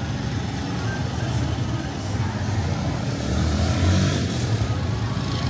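Street traffic: motor vehicle engines running and passing, one swelling louder about four seconds in.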